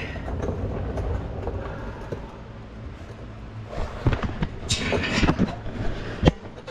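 Scattered metallic knocks and clatters of tools and parts being handled, the sharpest single knock a little after six seconds, over a steady low hum.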